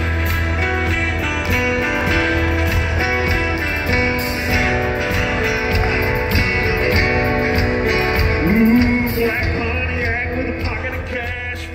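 Live country band playing in a concert hall: acoustic guitar over a steady heavy bass, with a man singing into the microphone.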